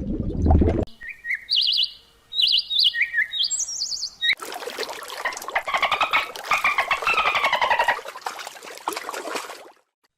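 Birds calling: a quick run of short, high chirps at shifting pitches, then a few seconds of dense, rapid chattering calls.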